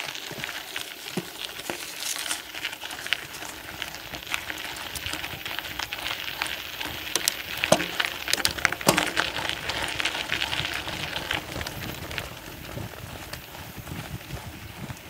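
Torpado Hurricane T550 mountain bike rolling over a dry dirt trail: the tyres crackle and crunch continuously over gravel, twigs and dry leaves, with many small sharp clicks and rattles from the bike, picked up by a camera mounted on the frame.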